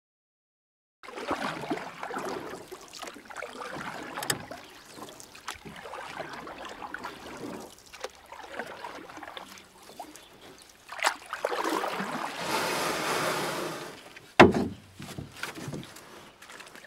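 Water sloshing and splashing in swells that rise and fade every couple of seconds, with a few sharp knocks; the sharpest comes near the end.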